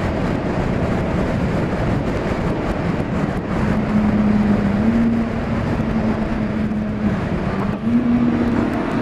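Inline-four engine of a 2005 Kawasaki ZX-6R with a Remus full exhaust, heard from the moving bike over constant wind noise. Inside a tunnel, from about three and a half seconds in, its exhaust note holds a steady pitch and steps up twice as the rider shifts down.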